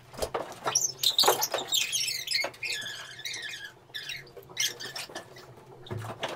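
Bare feet and bodies squeaking, sliding and padding on a glossy dance-studio floor during partner movement work, in short irregular squeaks and soft thuds.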